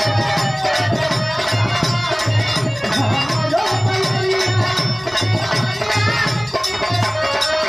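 Live Bhojpuri birha folk music: a drum keeping a steady beat of about two strokes a second, with jingling percussion and a steady held melody above it.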